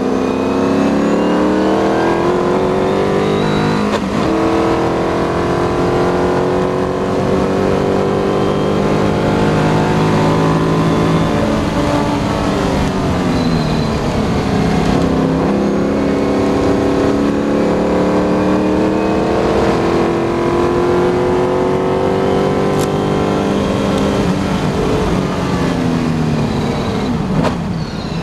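McLaren M10B Formula 5000 car's 5-litre V8 heard from the cockpit at racing speed, revving up through the gears with the pitch climbing and dropping at each shift, a sharp change about four seconds in. Near the end the revs fall away as the car slows and shifts down.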